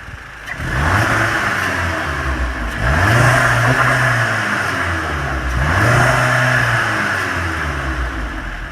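MK7 Volkswagen Golf GTI's 2.0-litre turbo four-cylinder on its stock air filter and intake, revved three times in a row. Each rev rises, holds for about two seconds and drops back, and the engine settles back toward idle near the end.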